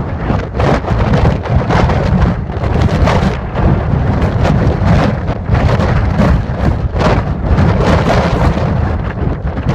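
Violent storm: dense, continuous drumming of heavy precipitation over a loud low rumble, cutting off suddenly near the end.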